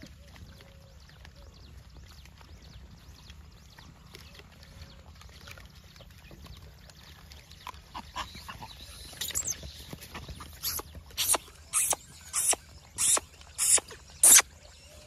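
Troop of gray langurs feeding on apples. In the second half, a run of about seven short, loud, harsh calls comes roughly every half second, the loudest near the end.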